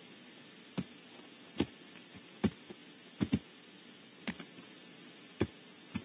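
About eight short, sharp clicks or knocks at irregular intervals, two of them in quick succession near the middle, over a low steady hiss.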